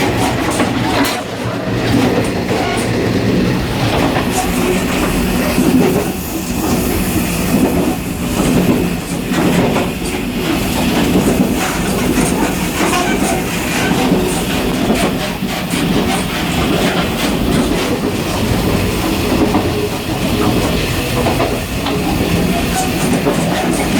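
Taiwan Railways local express train running, heard from the gangway connection between two coupled train sets: a steady loud rumble and rattle with scattered clicks of the wheels over the track.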